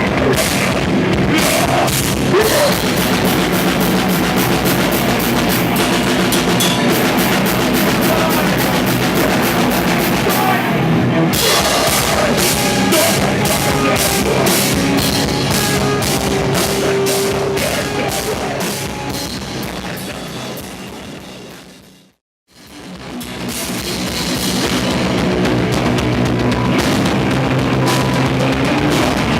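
A live deathcore band playing loud, with distorted guitars and fast-hit drums. About three-quarters of the way through, the music fades out to a moment of silence, then fades back in.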